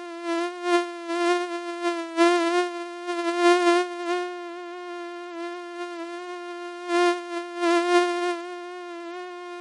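Mosquito wingbeat whine: a steady, high-pitched hum with a slightly wavering pitch that swells louder several times.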